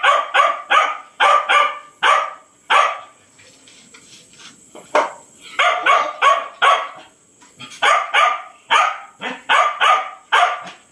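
Dogs barking at feeding time while food is dished out, in quick runs of short barks two or three a second. There is a quieter stretch in the middle, broken by a single bark.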